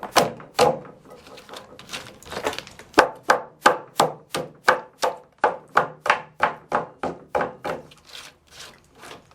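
Hammer striking the thin wooden tabs left between saw kerfs in a board, knocking them out to clear a groove: a run of sharp wooden knocks, about two or three a second, sparser at first.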